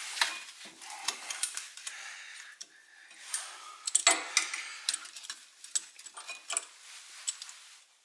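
Scattered light metallic clicks and clinks of a steel C-clamp being handled and repositioned on a front disc-brake caliper, irregular and with no steady rhythm.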